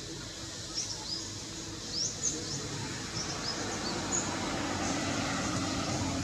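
Small birds giving short, high, upswept chirps, about eight scattered through the first few seconds, over a steady low background rumble.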